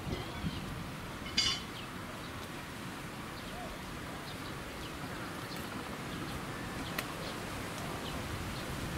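Outdoor background with faint bird chirps scattered through, one short louder harsh call about a second and a half in, and a single click later on.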